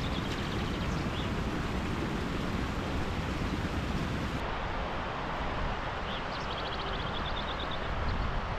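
Steady wind rush and buffeting on the microphone, with a small bird's rapid high trill near the start and again about two-thirds of the way in.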